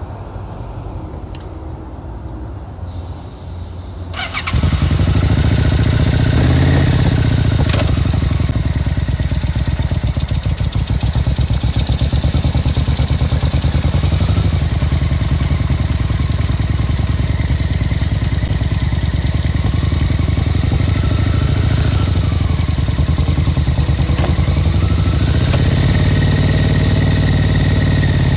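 Yamaha cruiser motorcycle engine, running quietly at first. About four seconds in it gets suddenly much louder and then rises and falls in pitch several times as it is revved.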